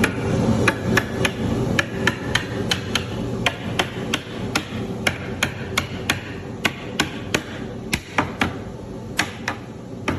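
Steady hammering on wood, sharp even blows at about three a second, with a steady low hum beneath.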